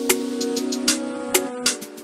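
Music: held chords with sharp, crisp percussion hits on top.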